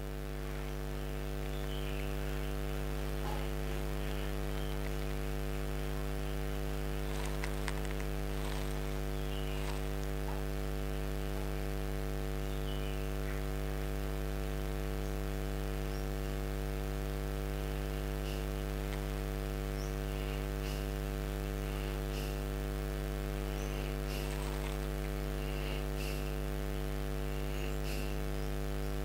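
Steady electrical mains hum, a low drone with a stack of evenly spaced overtones, with a few faint short ticks and chirps above it.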